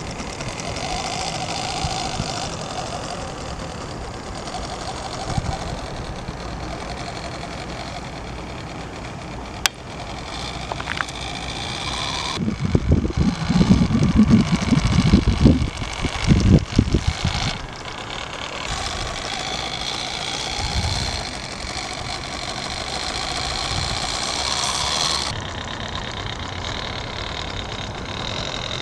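Electric motor and gearbox of a small RC crawler whining steadily as it drives, the pitch jumping abruptly several times. A stretch of loud, irregular low rumbling and thumps sits in the middle.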